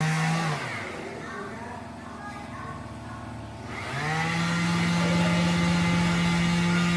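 A small electric motor winds down about half a second in, then spins back up about four seconds in and runs at a steady pitch.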